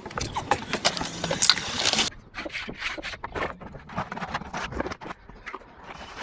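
Steel hand trowel scraping and knocking against wet cement and a hawk board as a finishing coat is worked onto concrete steps. The scrapes are busiest in the first two seconds, then thin out to scattered knocks.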